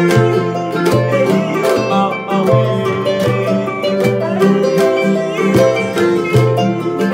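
Arched harp being plucked: a bright, repeating melody over a recurring low bass line, in a steady rhythm.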